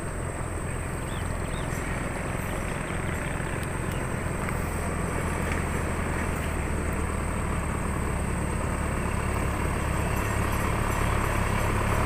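Isuzu 4HL1 four-cylinder common-rail diesel engine of a light truck running steadily as the truck approaches, growing slowly louder. The engine keeps running on a test drive after a repair for its habit of stalling.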